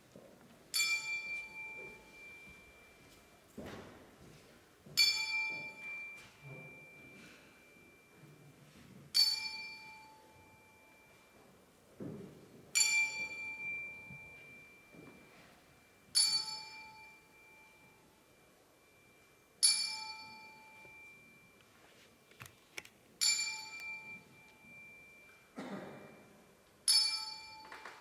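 A bell-like metallic tone struck eight times at an even pace, about every three and a half seconds, each strike ringing on and fading away. A few soft thumps fall between the strikes.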